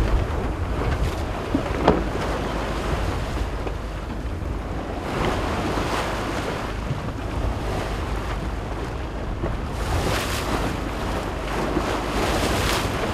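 Wind buffeting the microphone over the rush of choppy sea water from a sailing yacht under way. Louder washes of waves splash about five seconds in and again near the end, and there is a single short knock about two seconds in.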